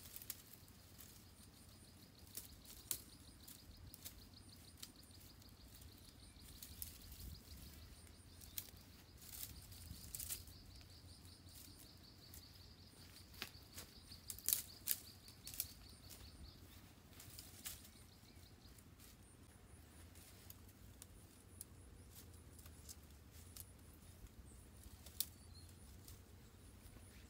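Leafy branches rustling and twigs clicking and snapping as they are worked into a bent-stick shelter frame, in scattered short, sharp bursts over a faint background.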